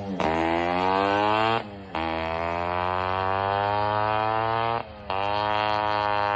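Motorcycle engine on its stock exhaust, rising steadily in pitch three times, with a short break between each rise.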